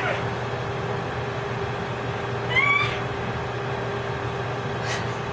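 Infant's short, high-pitched squeal, rising slightly, about two and a half seconds in, over a steady low background hum.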